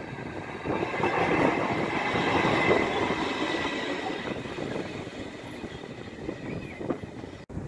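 Class 66 diesel locomotive with a two-stroke V12 engine running light and passing close by. The rumble of engine and wheels swells about a second in, then fades as it moves away, with a thin high squeal from the wheels as it passes. The sound cuts off sharply near the end.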